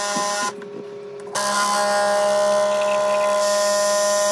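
Gevi espresso machine brewing into a mug, its pump buzzing with a steady hum and hiss. A short burst comes first, then a pause of about a second, then the pump runs steadily from about a second and a half in.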